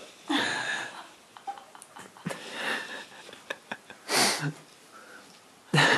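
A person's breathy sounds close to the microphone: a few short hissing bursts with no clear words.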